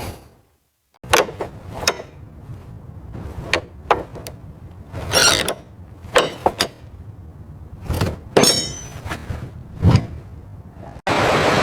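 Scattered metallic clinks, knocks and short scrapes of tools and parts being handled, with a quick rattle and a low thump near the end. A steady hiss then starts abruptly just before the end.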